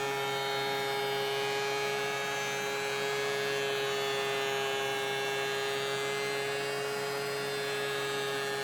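Steady electrical hum: several unchanging tones, one mid-pitched tone loudest.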